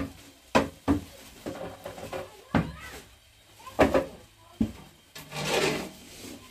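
A series of sharp wooden knocks, about five, as a large round wooden bread board is handled and set down, followed by a rustle near the end.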